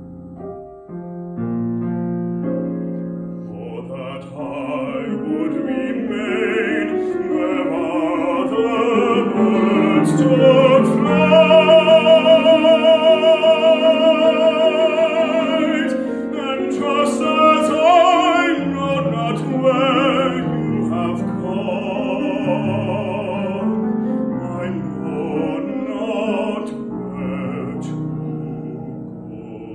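A bass-baritone singing a classical art song with grand piano accompaniment. The voice swells to a long, loud note with wide vibrato about eleven seconds in, then eases back over the piano.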